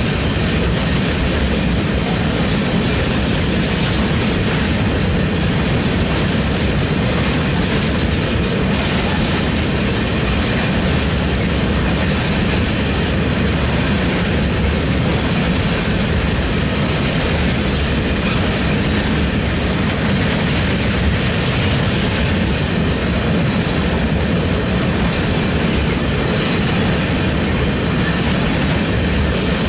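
Freight train of tank cars (an oil train) rolling past close by: a steady, loud noise of steel wheels running on the rails, unbroken as car after car goes by.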